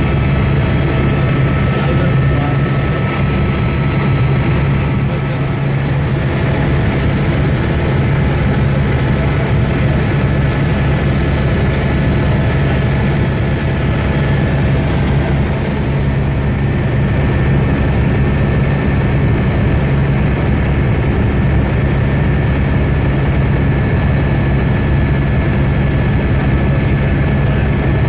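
Helicopter in flight: the engine and rotor make a loud, steady drone with no change in pitch.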